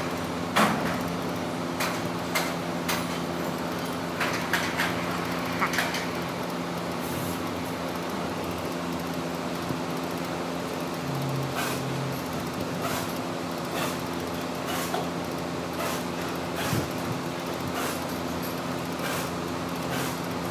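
Workshop machinery hum, steady throughout, with scattered sharp metallic clicks and knocks from parts being handled, most of them in the first few seconds.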